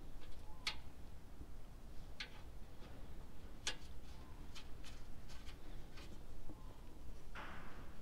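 Irregular light clicks and taps of a hand working an air-conditioning hose fitting on a bulldozer's condenser, with a short rustle near the end.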